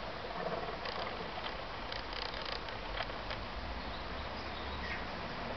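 Low, steady rumble of a passing canal narrowboat's engine, growing stronger after about halfway, with a few light knocks and clicks in the first half.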